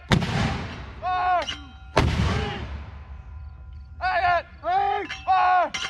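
Mortar firing two rounds, one just after the start and another about two seconds later, each a sharp report with a long echoing tail. Between and after the shots the crew shouts short commands.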